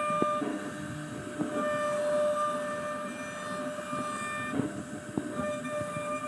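CNC router spindle running with a steady high whine while routing wood, with scattered light clicks; the whine briefly breaks off about four and a half seconds in.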